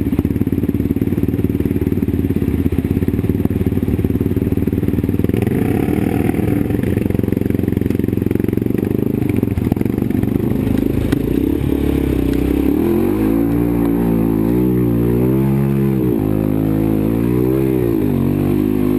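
ATV (quad) engine running steadily, then from about two-thirds of the way in revving up and down several times in a row.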